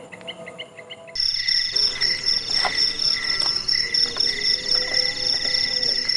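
Insects trilling in a dense night-time chorus of steady, pulsing high-pitched calls. The chorus jumps abruptly louder about a second in, and a few sharp clicks sound over it.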